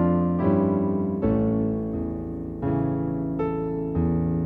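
Slow background piano music: chords struck about once a second and left to ring.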